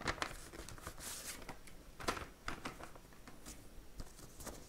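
Faint rustling and crinkling of paper as a letter envelope is opened and the letter handled, with scattered light clicks.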